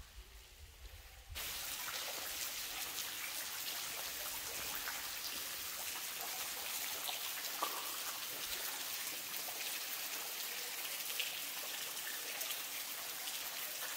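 Water falling from the high rock of a cave waterfall and spattering down as a steady hiss full of drop splashes. It comes in suddenly about a second and a half in.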